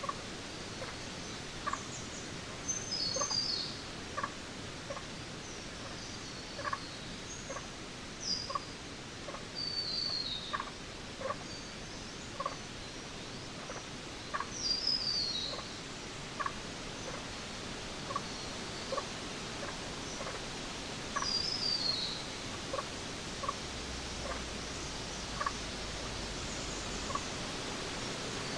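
Jungle ambience: a bird calls a quick run of high notes that step downward, repeated every five to seven seconds, over a steady hiss. Short lower chirps keep up a loose rhythm underneath.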